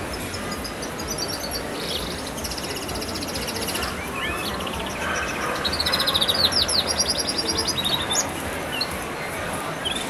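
Small cage birds in an aviary chirping in rapid high-pitched trills, in two spells, the second, about five seconds in, louder and busier, over steady background noise.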